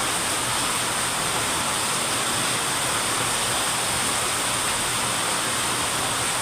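Rain falling steadily: a dense, even hiss with no breaks.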